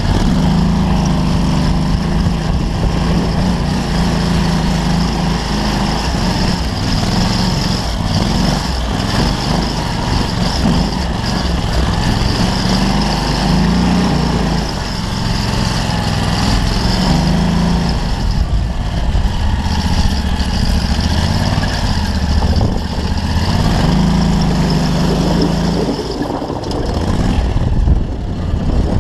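Off-road dune buggy's engine running hard as it is driven, its pitch rising and falling with the throttle.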